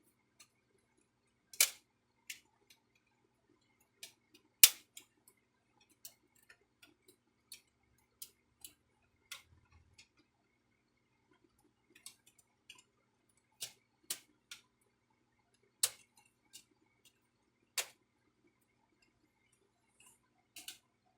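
Irregular sharp clicks and taps from a printer being handled and taken apart, a few of them much louder than the rest.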